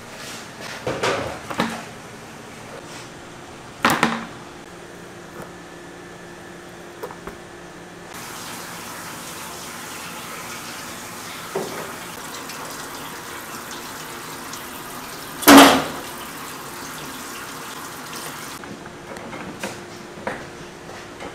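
Work sounds of fish handling over a steady machine hum: a few sharp knocks and clatters, the loudest about two-thirds through, and a stretch of running water in the middle lasting about ten seconds.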